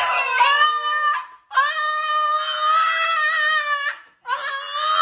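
An animal's long wailing cries, three in a row, each held at a steady pitch for one to two seconds with a slight waver.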